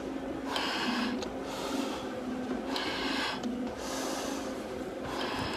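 Hard breathing through a firefighter's SCBA face mask: three rushing, hissing breaths through the regulator, with small valve clicks, over a steady low hum.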